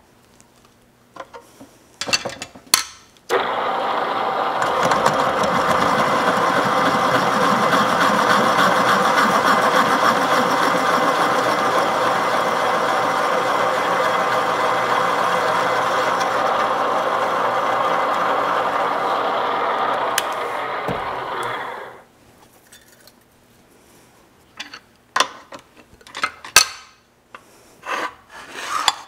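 Drill press running, its bit cutting through a steel frame patch panel in one long, steady stretch of about eighteen seconds that stops abruptly. A few short knocks and clatters of the panel being handled on the table come before and after.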